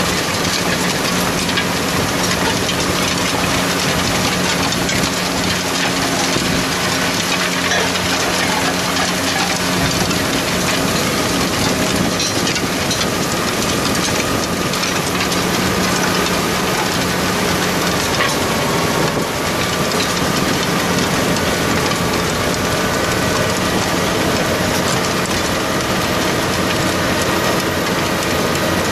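Tractor engine running steadily while pulling a Sumo Versadrill seed drill through stubble, mixed with the even, loud clatter and rustle of the drill's discs, tines and press wheels working the soil.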